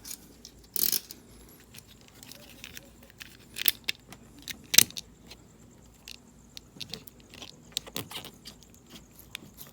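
Scattered sharp metallic clicks and light scrapes from hand tools. A razor blade is trimming the excess tire-plug strings off the tread of a car tire. Louder clicks come at about one second in, around four and five seconds, and near eight seconds.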